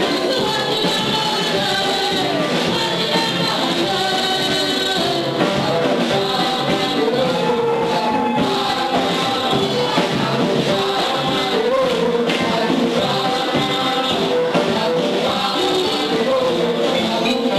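Worship song: music with singing voices, at a steady loud level.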